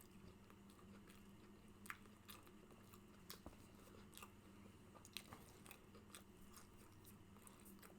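Faint close-miked chewing of McDonald's food, with small wet mouth clicks and smacks coming at irregular intervals over a low steady hum.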